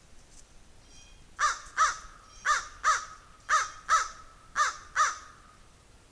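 Crow cawing: eight harsh caws in four evenly spaced pairs.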